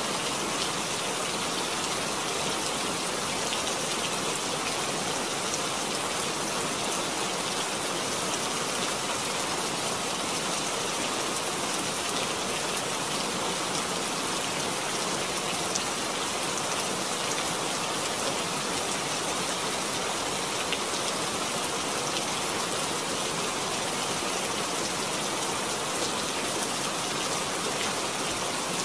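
Rain falling steadily, an even, unbroken hiss with a fine patter of individual drops.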